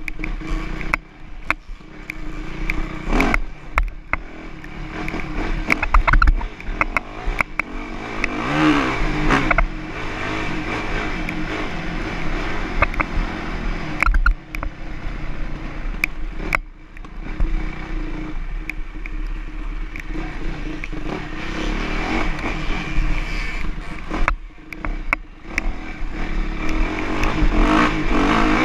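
Dirt bike engine revving and running over rough ground, heard close up on a rider-mounted GoPro; the revs rise and fall, dropping off briefly several times. Frequent sharp clicks and clattering knocks run through it.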